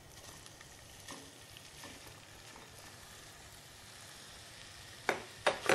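Minced meat sizzling in melted butter in a pot, a soft steady frying hiss. About five seconds in, a few sharp knocks and scrapes of a spatula against the pot as the meat is stirred.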